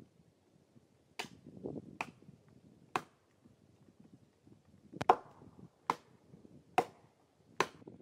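Sledgehammer blows driving orange plastic felling wedges into the back cut of a large tree: seven sharp cracks, about one a second, with a pause in the middle.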